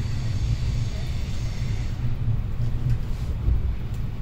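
A passenger train's low, steady running rumble heard from inside the carriage as it pulls out of the station. A faint high whine sits over it for the first two seconds.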